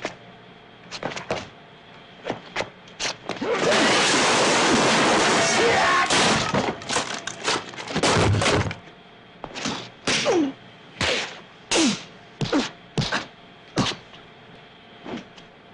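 Foley sound effects for an action scene made with props: a run of sharp thuds and whacks, a longer crashing, clattering stretch a few seconds in, then a series of separate hits about a second apart.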